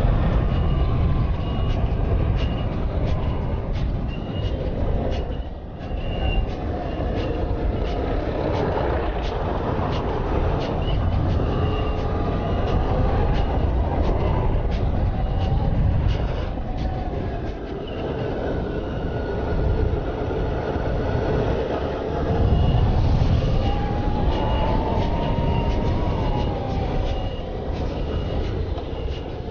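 Motorcycle engine running on the move, its pitch rising and falling with the throttle, under heavy wind rush on a helmet-mounted microphone. A short high beep repeats about twice a second for much of the ride.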